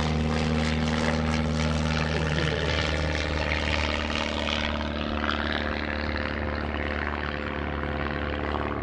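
Piston engine of a light single-engine propeller airplane running steadily as it flies a low pass, the sound turning duller about halfway through.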